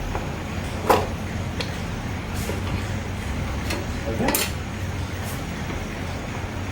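Scattered metallic clinks and knocks of tools and parts during reassembly of a motorcycle's rear drum brake and wheel, the loudest a little past the middle, over a steady low hum.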